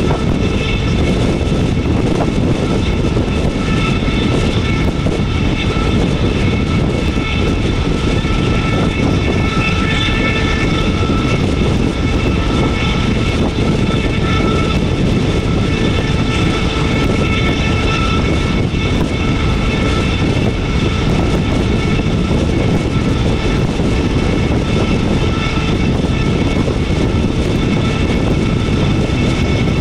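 Indian Railways WDM-3A diesel-hauled express train running at speed: a steady, loud rumble and rush with a faint, wavering high whine over it.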